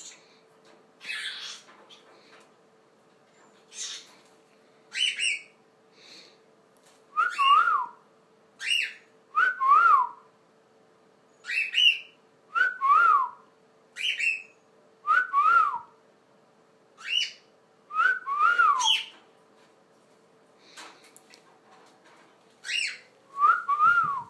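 Cockatiel whistling over and over, short rising-and-falling whistle notes mixed with higher chirps, about one call every second or two: a young bird's first attempts at a wolf whistle.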